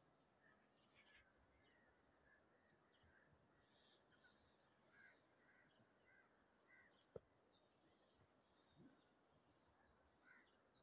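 Near silence with faint bird chirps, and one sharp click about seven seconds in.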